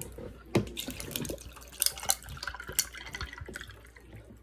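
Water splashing and dripping in a kitchen, with scattered sharp clinks and knocks at irregular moments.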